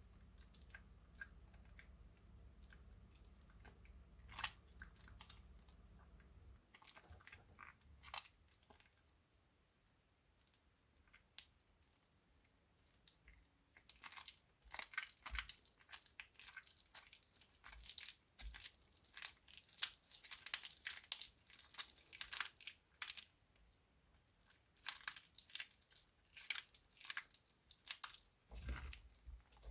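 Soaked glycerine soap plates being washed, giving crisp crunching and crackling: scattered clicks at first, then dense crackling from about halfway through, broken by short pauses.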